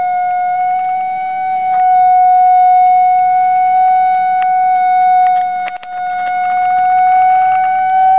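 Gauss meter phone app's audio tone: a steady electronic tone whose pitch drifts slightly with the magnetic field reading, dipping briefly about six seconds in, with a few faint clicks.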